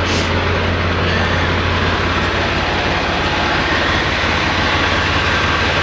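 Semi truck's diesel engine idling steadily close by, with a brief hiss at the very start.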